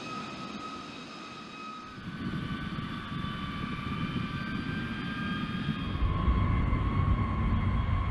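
B-52 bomber's jet engines running on the runway: a steady high whine, with some tones slowly gliding, over a rushing rumble. The sound shifts abruptly about two seconds in and again about six seconds in, after which the low rumble is heavier.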